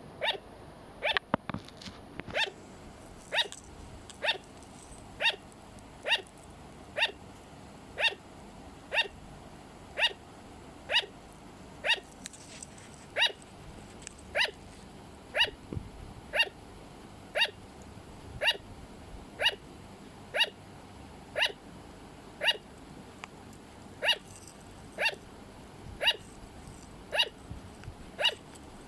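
Sugar glider barking: short, sharp, yappy calls repeated at a very even pace, about one a second.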